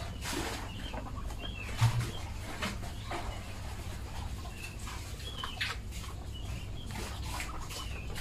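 Poultry yard sounds: short high chirping calls repeating every second or so, with scattered clicks and rustles as Muscovy ducks peck grain from a plastic feed tray. A brief low thump about two seconds in.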